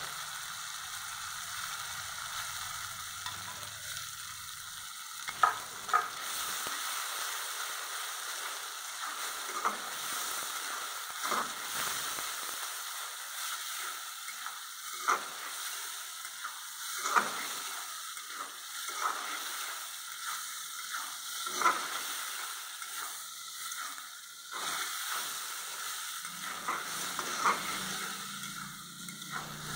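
Tomato paste sizzling and frying in hot mustard oil in a kadai. It is stirred with a steel spatula that scrapes the pan and knocks against it in sharp clicks every few seconds, starting about five seconds in.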